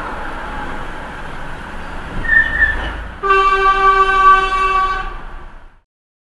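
Vehicle horn sounding one long blast of about two seconds over steady road traffic noise, a warning at a lorry that fails to give way. A short high squeak comes just before the blast.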